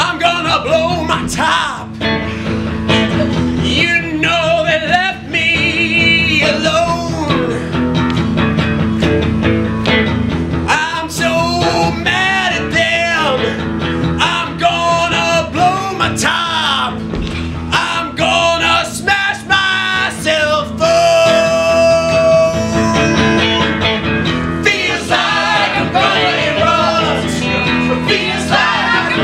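Live musical accompaniment from a single stage musician, with several voices singing and vocalizing over it, including one long held note about two-thirds of the way through.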